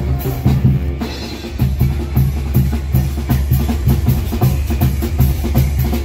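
Live banda music: the melody fades in the first second, leaving the band's bass drum and snare playing a steady, driving beat on their own.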